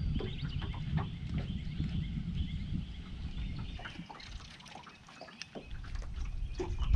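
Wind rumbling on the microphone, with small waves lapping and ticking against the boat's hull and birds chirping in the background. The rumble eases about four seconds in and picks up again near the end.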